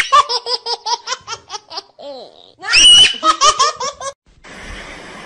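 High-pitched laughter in quick, pulsing peals, broken by two shrill squeals. It stops suddenly about four seconds in, leaving a faint steady hiss.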